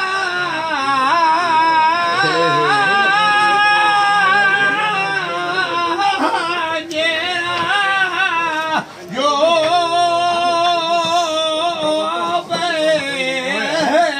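Flamenco cante por soleares: a solo voice singing long held, wavering notes with ornamented turns in pitch, broken by a few short breaths.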